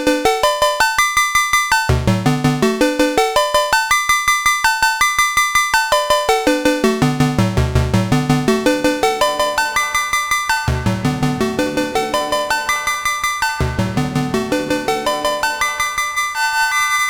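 Ad-vantage 03m monophonic analog synthesizer playing a rapid sequenced arpeggio of short notes, one note at a time, in phrases that climb from low to high and repeat every few seconds. Near the end the notes run together more smoothly.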